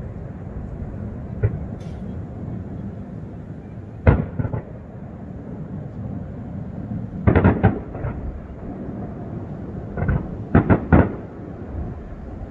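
Aerial fireworks shells bursting in a series of sharp bangs over a steady background noise. There is a faint bang about a second and a half in, and a loud one about four seconds in followed by two smaller ones. Then come quick clusters of three or four bangs at around seven to eight seconds and again at around ten to eleven seconds.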